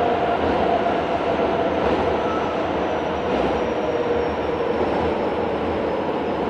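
Kobe Municipal Subway 1000 series train running, heard from inside the car: a steady rumble of wheels on rail, with the whine of its Hitachi GTO-inverter traction drive sinking slowly in pitch as the train slows.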